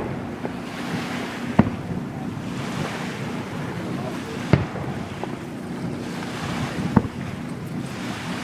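Steady wind and lapping-water noise, broken three times by a sharp bang, about two and a half seconds apart.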